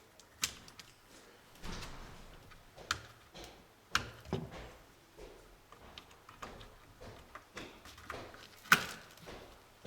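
Scattered clicks and knocks of hands working an Intel LGA 1150 CPU socket and processor: metal load plate and lever being handled, with a sharp snap near the end.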